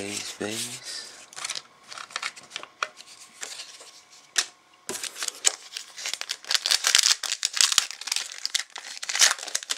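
Crinkling and tearing of a clear plastic trading-card pack wrapper as it is handled and opened: scattered crackles at first, then dense crinkling from about five seconds in.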